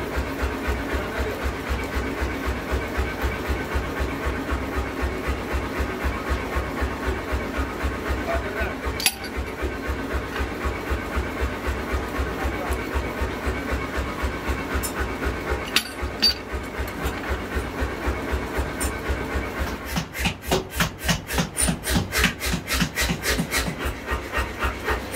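Electric motor of a twisting jig turning a red-hot steel bar, running with a steady low pulsing of about four beats a second under a grinding, scraping rasp of metal, with a couple of sharp knocks. In the last few seconds a louder run of rhythmic rasping strokes, about three a second, takes over.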